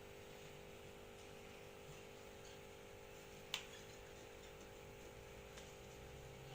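Near silence: a faint steady hum, with one sharp click about three and a half seconds in.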